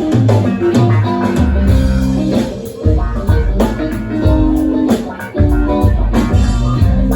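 A live band playing at a sound check: guitar and bass guitar with a drum kit, the bass holding long low notes under the guitar chords.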